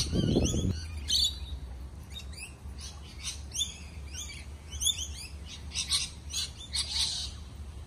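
Small birds chirping: many short, high chirps in quick runs throughout, over a low steady rumble.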